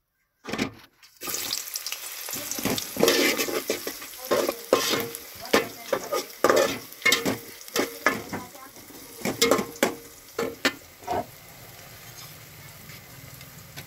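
Sliced onions hitting hot oil in an aluminium pot start sizzling about a second in, the first stage of frying them brown. A ladle stirs and scrapes them round the pot in short strokes, then stops near the end, leaving a steady sizzle.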